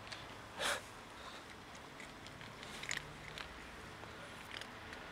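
Starving stray cat eating dry kibble from a plastic tray: scattered sharp crunches and sniffs, the loudest near the start.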